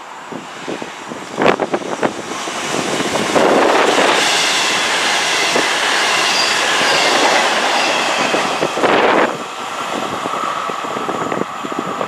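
CrossCountry Voyager diesel multiple unit passing through a station at speed. Its rush of engines and wheels builds as it approaches and stays loudest for about five seconds as it goes by, with high whining tones over it. It then drops suddenly to a steadier, quieter running noise with one held tone as the train draws away.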